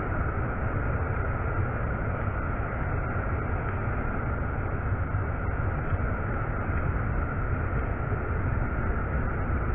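Ocean surf breaking offshore and washing up the sand: a steady wash of noise with a strong low rumble and no distinct events.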